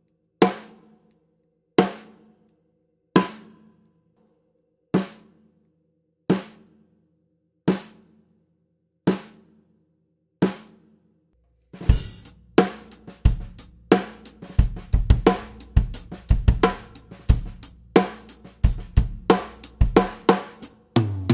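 Snare drum, muffled by a beaded bracelet lying on its head, struck alone about once every second and a half, each stroke a little softer than the one before. About twelve seconds in, a full drum-kit groove starts, with bass drum, snare and cymbals.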